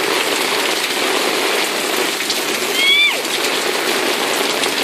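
Heavy rain pouring down hard, a steady loud downpour. About three seconds in, a woman's voice gives a short exclamation that falls in pitch.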